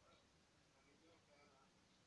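Near silence: only a faint hiss.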